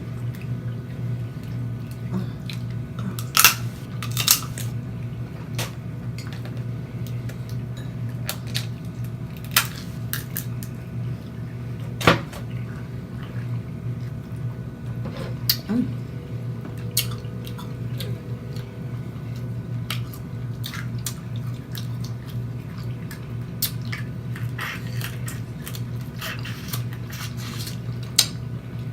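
Close-up eating sounds from a snow crab seafood boil: wet lip-smacking and chewing with scattered sharp clicks and snaps at irregular intervals, over a steady low hum.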